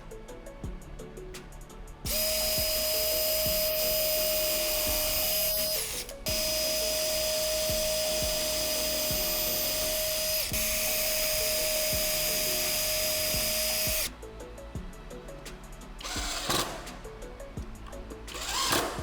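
Electric power tool, drill-like, running at steady speed from about two seconds in, stopping for a moment about six seconds in, then running again until about fourteen seconds, with a high steady whine over the motor. Background music plays throughout, with short rough noisy bursts near the end.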